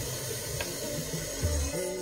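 Weak, distant FM radio station heard in mono through a tuner: music half-buried in static hiss, typical of a signal arriving by Sporadic E skip. The music comes through more clearly in the last half-second.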